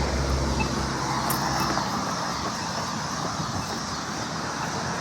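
Road traffic: a vehicle's engine rumble that fades after about two seconds, then a steady wash of passing-traffic noise.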